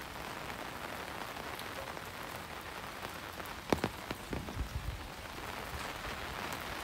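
Steady rain falling with an even patter, and a few sharper knocks a little past the middle.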